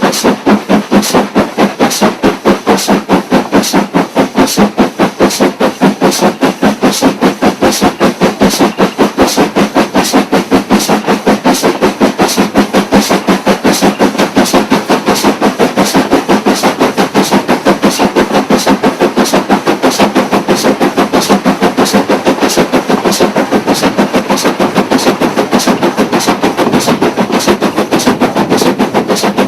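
Stanier 'Black 5' 4-6-0 steam locomotive working hard, its two-cylinder exhaust giving loud, evenly spaced beats of about three to four a second at a steady pace.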